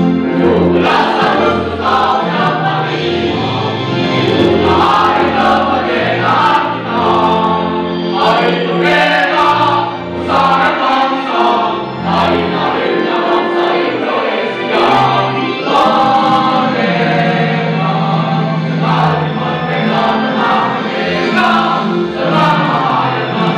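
Mixed choir of high-school boys and girls singing an Indonesian national song, several voices together, without pause.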